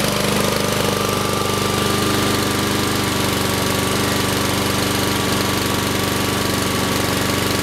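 Husqvarna HU700F walk-behind lawn mower's Honda engine running steadily just after being pull-started.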